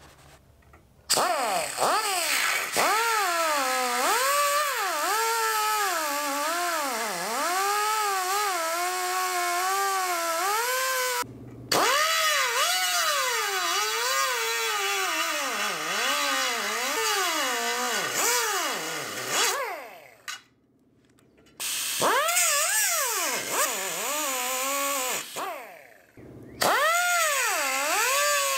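Cut-off tool with a 3-inch abrasive cutoff wheel cutting through engine-hoist steel tube, its pitch wavering up and down as the wheel bogs and frees in the cut. It stops briefly near the middle, winds down and pauses for a moment later on, and stops again shortly before the end. The wheel is old and glazed, and the user says it burns its way through more than it cuts.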